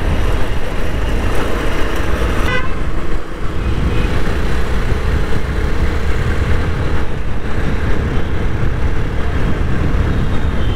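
Motorcycle riding in road traffic: a steady rumble of engine, tyres and wind. A vehicle horn toots briefly about two and a half seconds in.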